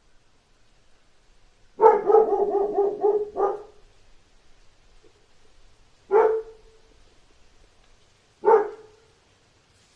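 A dog barking: a quick run of rapid barks about two seconds in, then single barks about six and about eight and a half seconds in.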